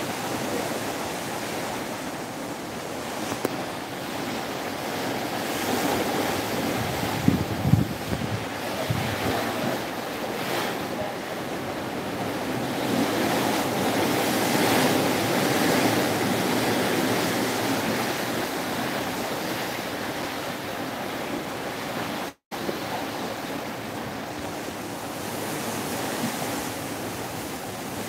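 Sea water rushing and splashing along the hull of a moving boat, with wind buffeting the microphone. There are a few sharp knocks about seven to nine seconds in, and the sound drops out for an instant about 22 seconds in.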